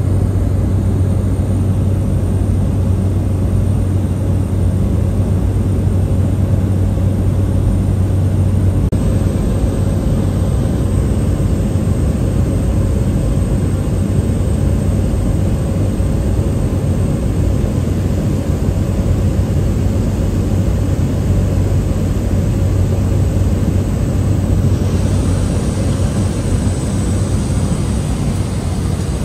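Cabin noise of a small propeller plane in flight: a loud, steady engine and airflow drone with a low hum. Its tone shifts slightly about nine seconds in and again near the end.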